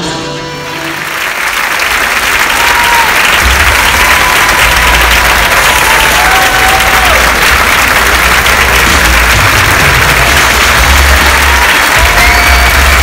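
Large audience applauding: the clapping swells within the first couple of seconds, just as a string quartet's last notes die away, and then holds at a steady loud level.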